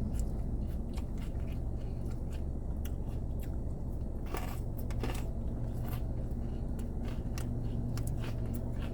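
Close-up chewing of a crisp salad, lettuce and croutons crunching in short, irregular clicks over a steady low hum.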